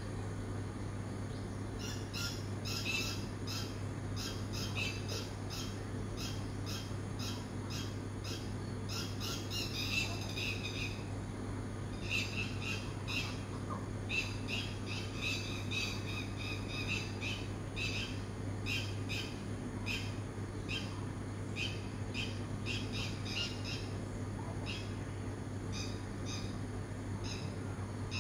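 Dawn chorus of birds, led by one bird repeating a short, high call several times a second in long runs with brief pauses, starting about two seconds in. A steady low hum runs underneath.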